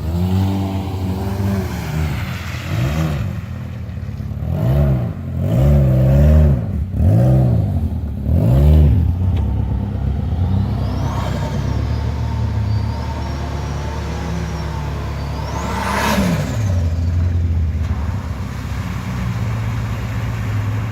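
Turbocharged Nissan TB42 straight-six engine revving hard several times in quick succession, its pitch rising and falling with each blip. Later a high turbo whistle rises and falls, climbing to a sharp peak and dropping away about sixteen seconds in.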